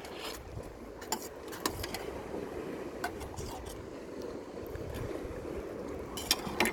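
Steady wind and sea noise at the shoreline, with a few light clicks and taps scattered through it.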